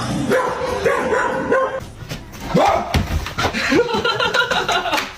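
A dog barking and yipping in a string of short calls, with a person's voice mixed in.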